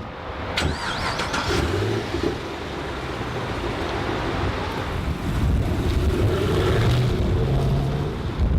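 A car engine running as the car drives, growing louder and rising in pitch about five to seven seconds in as it speeds up.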